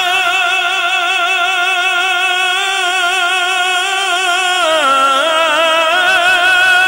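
A man singing one long, held note of a naat recitation into a microphone, the note wavering with vibrato. About two-thirds of the way through it slides down to a lower note, which he keeps holding.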